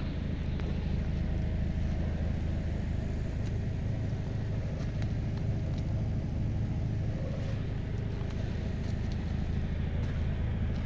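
Mercedes-Benz Actros 2542 truck's diesel engine idling, a steady low hum.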